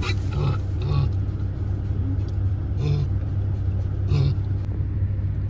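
Steady low rumble of a vehicle engine running. Over it come four short, low grunts from a 6-week-old Landrace piglet in its straw-lined wire crate.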